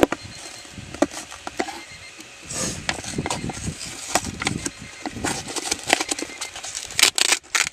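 Fingers pressing, poking and rubbing the torn paper cone and dust cap of a blown speaker: scattered clicks, taps and rustles.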